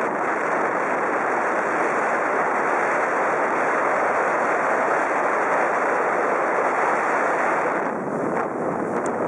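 Steady wind buffeting the microphone over the rush and slap of choppy water around a moving boat, easing slightly near the end.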